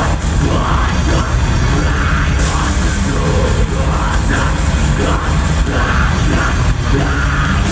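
Live rock band playing loudly: electric guitars, bass, drums and keyboard, with a vocalist singing over them.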